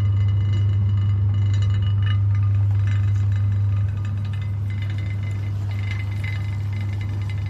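Electric meat grinder motor running with a steady low hum and light rattling and clinking; it drops a little in level about four seconds in.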